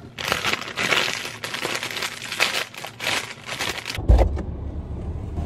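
Plastic packaging crinkling and rustling as it is handled, for about four seconds. Then, suddenly, the steady low rumble of a car's cabin takes over.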